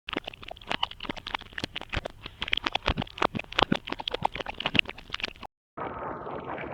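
A rewind sound effect: rapid, irregular clicking and ticking that cuts off suddenly after about five and a half seconds. After a short gap, a steady whirring hiss with falling sweeps starts near the end.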